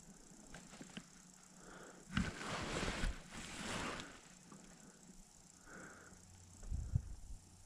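Quiet, breathy noise with a two-second rush starting about two seconds in. Near the end come a few low knocks, like something bumping the aluminum boat's hull.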